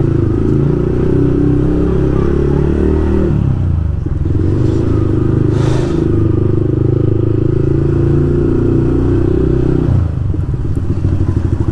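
Motorcycle engine running while riding, its note easing off briefly about four seconds in and again near the end before picking back up.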